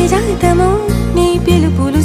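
Background music: a melody with curving, ornamented notes over held bass notes that change about every half second.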